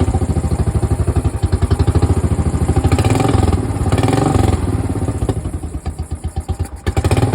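Royal Enfield Bullet single-cylinder engine running with an even beat. It is blipped up and back down about three seconds in, then sags to a softer, lumpier tickover before picking up near the end. The owner puts the reluctance to tick over down to the newly fitted air filter.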